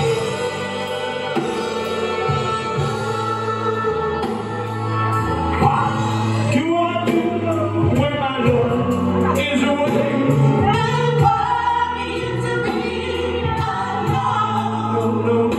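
Live blues band playing, with drums, bass guitar and electric guitar under lead and female backing vocals.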